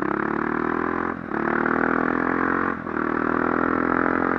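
KTM 450 EXC's single-cylinder four-stroke engine, fitted with an aftermarket copy of an Akrapovič exhaust, accelerating through the gears: the engine note climbs, drops briefly at an upshift about a second in and again near three seconds, then climbs again.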